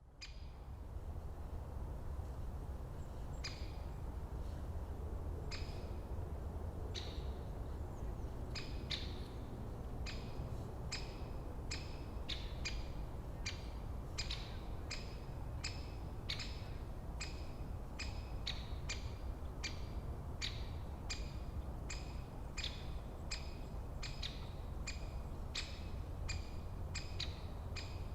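A bird calling over and over with short, identical notes: scattered at first, then steady at roughly two calls a second. A steady low rumble of forest ambience runs underneath.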